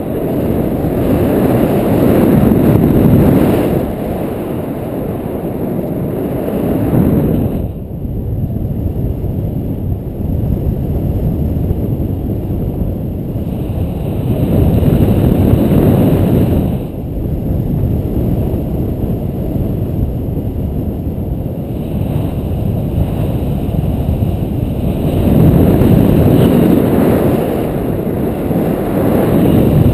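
Wind rushing over the camera's microphone as the paraglider flies: a loud, low rumble that swells and eases, loudest about 3, 15 and 27 seconds in, and dropping away sharply about 8 and 17 seconds in.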